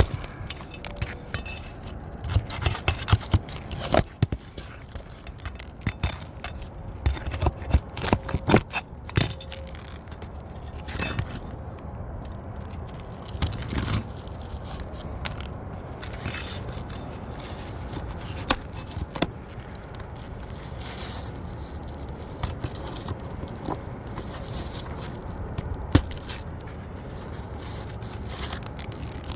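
Scraping with many sharp clicks and knocks as an asphalt roof shingle is worked loose and its nails are pulled. The clicks come thick in the first half and thin out later, with one sharp click near the end.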